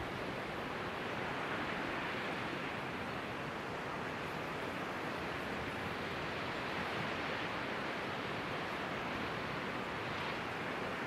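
Distant surf washing against rocks far below, heard as a steady, even rush.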